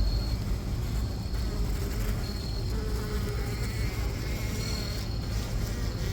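A swarm of honeybees buzzing steadily around their wild colony in a fallen tree log, over a low rumble.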